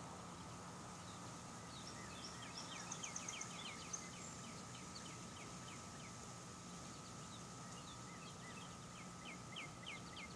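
Runs of quick, high chirping calls from a small animal, one about two seconds in and another near the end, over a faint steady hiss.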